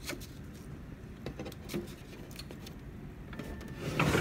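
Light plastic clicks and handling noise from an HP Laser MFP printer's paper tray, then a louder rubbing knock about four seconds in as a hand pushes on the tray. A faint steady high tone comes in shortly before the knock.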